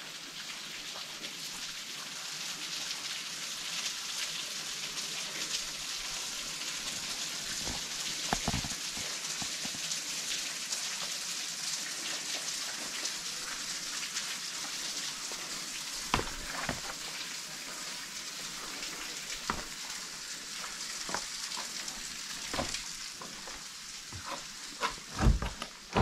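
A steady hiss of falling water pattering on rock. Scattered knocks of footsteps on loose stones come more often near the end, the loudest a second or so before it.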